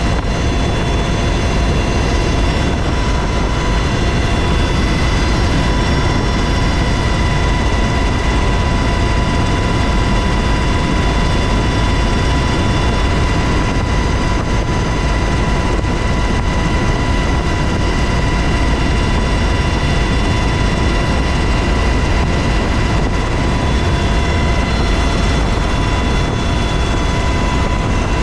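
UH-60 Black Hawk helicopter in steady cruising flight, heard from inside the cabin with the side door open: a loud, unbroken rumble of the twin turbine engines and rotor, with a constant high whine over it.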